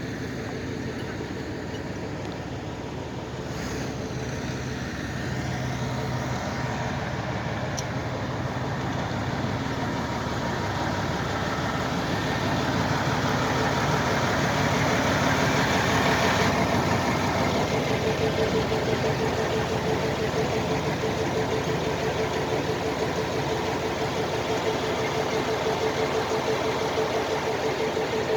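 An engine running steadily. It grows louder through the first half and drops off sharply about sixteen seconds in, then settles into a steady hum.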